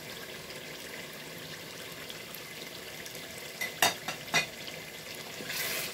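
Tomato and onion stew sizzling steadily in oil in a pot, with two sharp knocks a little under four and a half seconds in and the sizzle growing louder near the end.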